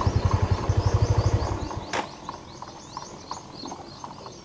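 A two-wheeler's engine idling with an even low pulse of about eight beats a second, then shut off a little under two seconds in, followed by a single sharp click. Many small birds keep chirping high and fast throughout.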